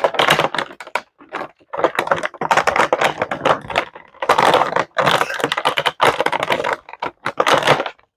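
Stiff clear plastic clamshell packaging crackling and crinkling as it is cut and pulled apart with scissors. The sound comes as clusters of rapid clicks and crackles with short pauses between them.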